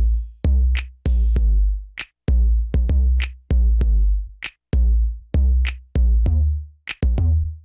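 Instrumental hip hop beat from a drum machine: sharp claps over long, deep 808 bass hits in a steady rhythm.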